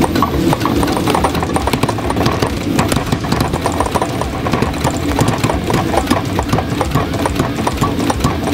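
Power hammer striking a hot steel bar in a rapid, steady run of blows, several a second, drawing the bar out.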